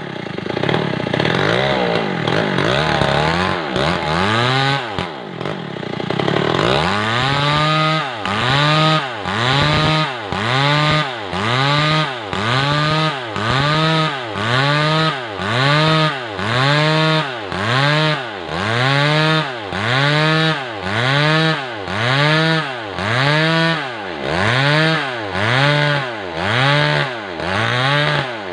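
Stihl MS 381 two-stroke chainsaw ripping lengthwise through a weru log. Its engine note rises and falls irregularly at first, then from about six seconds in swings up and down in a steady rhythm about once a second as the saw is worked through the cut under load.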